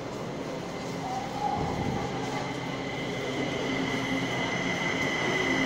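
Kaohsiung MRT train approaching an underground station platform, growing steadily louder, with a high steady whine that strengthens as it nears. It is heard from behind the platform screen doors.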